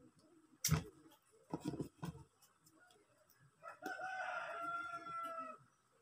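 A sharp knock, about a second in, and a few softer knocks from handling the work. Then a rooster crows once in the background for about two seconds, its pitch sinking slightly toward the end.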